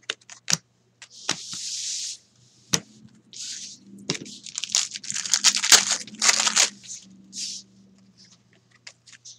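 Trading cards handled on a desk: cards slid against each other and set down onto piles, in a string of light taps and crackly rustles that thicken about four seconds in.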